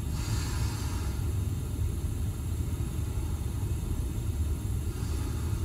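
Steady low rumble, with a soft breath hissing in the first second and another about five seconds in.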